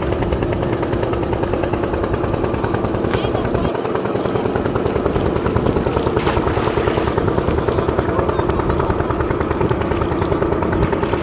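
A boat's engine running steadily, a rapid even knocking that carries across the water.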